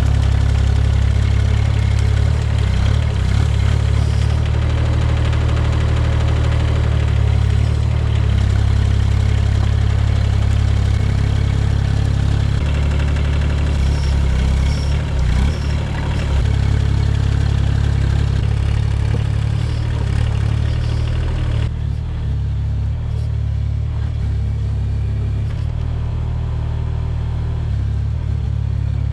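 Rippa mini excavator's engine running steadily as the machine works at digging out stones. About 22 seconds in, the higher working noise drops off and only the engine's steady drone remains.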